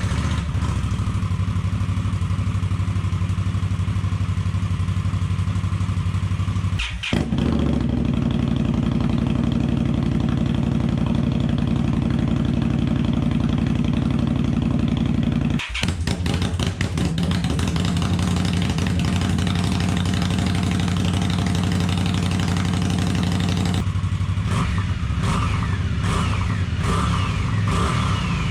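Indian Scout's liquid-cooled V-twin running through aftermarket slip-on mufflers, a steady, fairly loud exhaust note. It breaks off briefly twice, about 7 and 16 seconds in, and changes character over the last few seconds.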